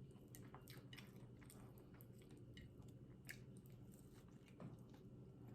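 Faint chewing of a BLT sandwich, with scattered small mouth clicks.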